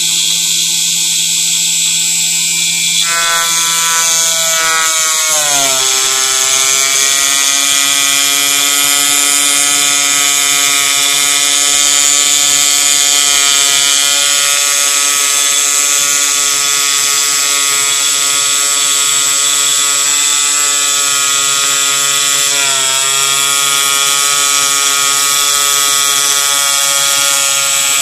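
MPCNC foam cutter at work: the machine's motors whine in several steady tones over a constant high hiss from the needle drive. The pitch glides down about four to six seconds in and dips briefly again near the end as the cutting moves change speed.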